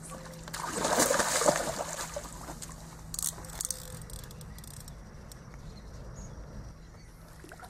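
Hooked carp thrashing and splashing at the water's surface as it is scooped into a landing net. The splashing is loudest for about a second and a half, starting about half a second in, with a shorter splash about three seconds in.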